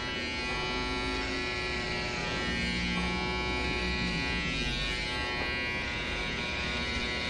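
Electric hair clippers buzzing steadily at an even pitch.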